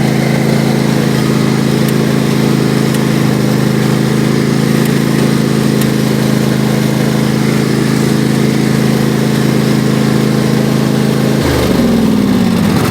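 Riding lawnmower's engine running steadily at constant speed, then dropping in pitch about eleven and a half seconds in as the engine winds down.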